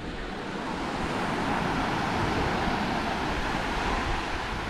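Waves washing onto the beach: a rushing surf that swells about a second in and eases off near the end.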